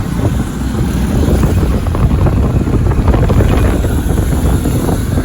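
Waterfall rushing steadily, a loud dense roar heavy in the low end, with wind buffeting the microphone.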